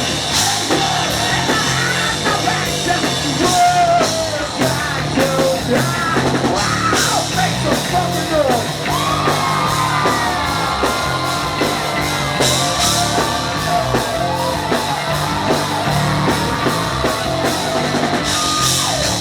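Rock band playing loud and live: pounding drums, bass, distorted electric guitars and shouted vocals.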